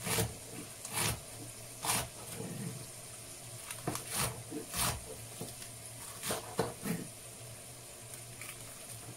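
Knife chopping spring onions on a cutting board: short, irregular cuts about once a second, with a steady low hum underneath.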